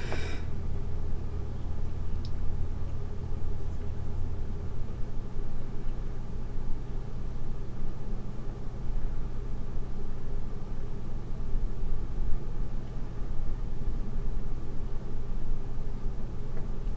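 Steady low rumble with a faint hiss.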